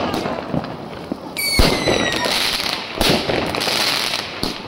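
Fireworks going off: several sharp bangs with crackling between them, and a high whistling firework, falling slightly in pitch, for about half a second a little over a second in.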